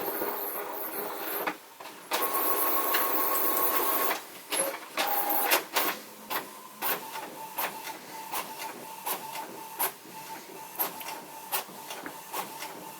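Desktop printer printing a page: two loud whirring stretches in the first four seconds, then a steady run of clicks and motor whir as the page goes through.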